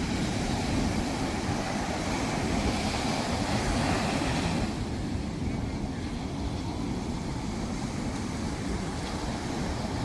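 Sea waves washing onto a sandy beach, with wind buffeting the microphone as a steady low rumble. A wave's wash swells about three seconds in and fades away about five seconds in.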